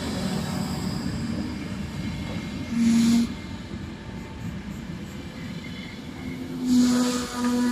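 Passenger train coaches rolling along the track as the train pulls away, a steady rumbling noise. About three seconds in comes a short loud hiss with a tone, and near the end a louder burst and a steady tone begin.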